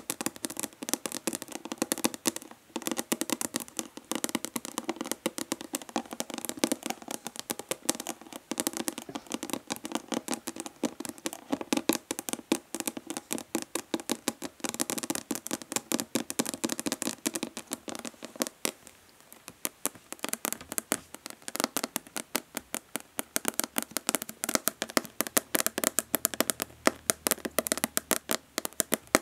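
Long natural fingernails tapping fast and hard on a plastic body lotion bottle: a dense stream of sharp hollow clicks, with brief lulls about two and a half seconds in and again around nineteen seconds.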